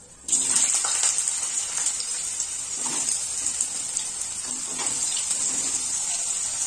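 Diced potatoes frying in hot mustard oil in a kadai: a loud sizzle sets in suddenly as the pieces go into the oil and runs on steadily, with a few light knocks of pieces landing in the pan.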